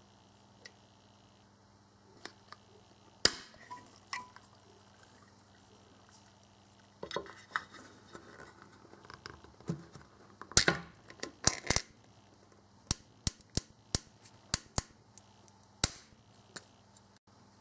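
Full-open ring-pull lid on a steel food can being opened by hand: scattered sharp metallic clicks and snaps as the tab is lifted and the seal breaks, loudest around the middle. It ends in a quick run of crisp clicks as the lid peels back around the rim.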